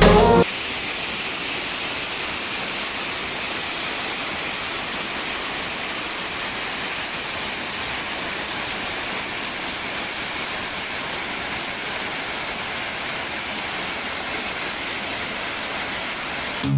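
Manan Ella waterfall rushing steadily, an even hiss of falling water with no change in level, after a song cuts off about half a second in.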